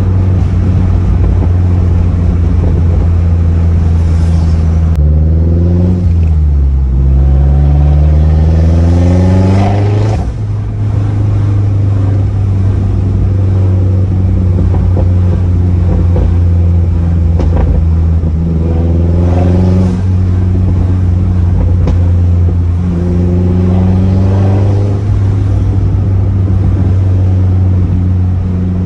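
Turbocharged 2.3-litre four-cylinder of a 2011 Mazdaspeed3, fitted with an aftermarket CPE downpipe and turboback exhaust, droning deep and steady, heard inside the cabin. Three times the pitch climbs as the car accelerates, and the first climb falls away sharply at the top.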